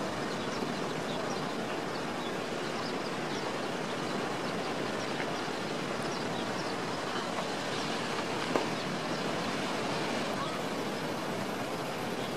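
Steady outdoor noise of wind and ocean surf, with faint high chirps scattered throughout and a single click about eight and a half seconds in.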